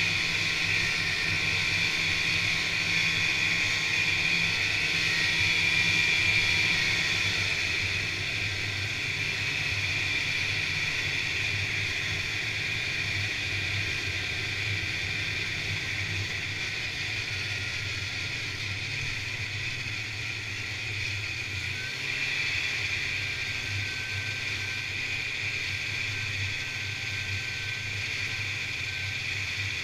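Snowmobile engine running steadily as the sled travels along a snow trail, with a constant hiss of track and wind noise. It eases off a little after several seconds and picks up again briefly later on.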